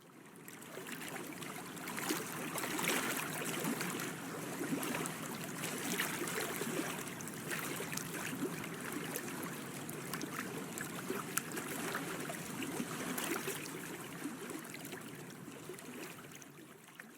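Water lapping and splashing, a steady wash of small splashes and drips. It fades in at the start and fades out near the end.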